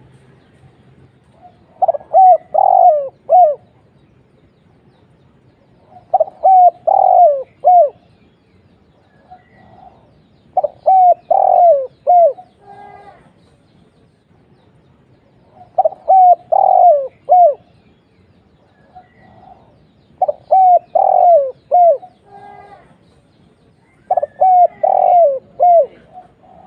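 Spotted dove cooing: six phrases of several notes each, about every four and a half seconds, with fainter single coos between them.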